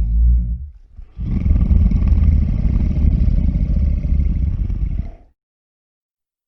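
Deep, rough rumbling sound effect: one rumble fades out, and after a short gap a second one runs for about four seconds and cuts off abruptly into silence.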